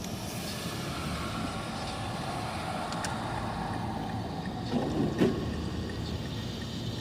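A car driving on a highway, with steady road and engine noise. About five seconds in there is a short, louder sound.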